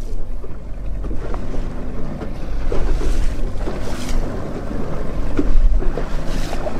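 Open fishing boat under way: its outboard motor runs steadily while water splashes and slaps against the hull, with wind buffeting the microphone.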